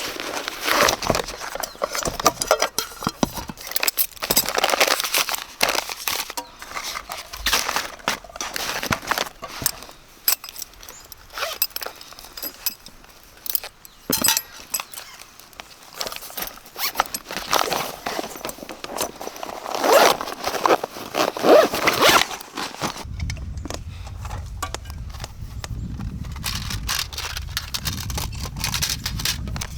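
Rustling, clicking and handling noises of camping gear being unpacked and set up. About 23 seconds in, a steady low rumble of strong wind on the microphone takes over.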